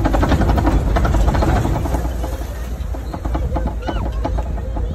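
Open-sided safari truck driving along a rough track: a steady low rumble of engine and road, with rattling during the first couple of seconds.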